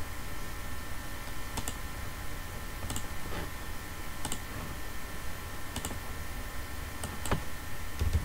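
Computer mouse clicks and keyboard keystrokes: about seven single sharp clicks, spaced a second or more apart, over a steady hiss with a faint hum.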